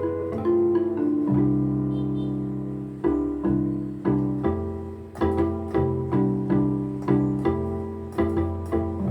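Arturia Analog Lab V software instrument playing a vintage keyboard preset: chords over a bass line, one long held chord and then notes struck about twice a second, each with a sharp attack that fades.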